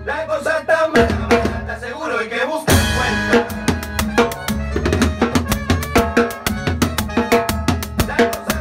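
Timbales played with sticks over a salsa band recording. A melodic horn or vocal phrase with only sparse strikes gives way, about a third of the way in, to a loud cymbal crash, after which a steady, fast pattern of stick hits on the drums and shells runs on.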